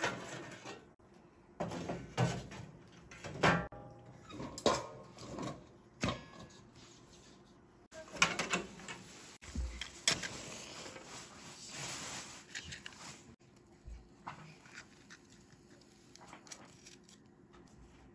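Split firewood and kindling sticks clattering and knocking against each other and the iron stove as they are laid into the firebox. About halfway through, a match is struck on its box and hisses as it flares, followed by faint light clicks and rustles.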